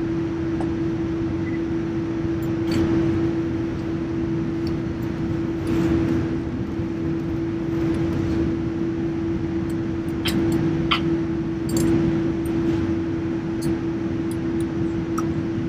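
Steady hum inside a Boeing 787 on the ground with both engines running at idle after start, a single steady tone over an even rush of air. A few sharp clicks sound about ten to twelve seconds in, as cockpit switches are set.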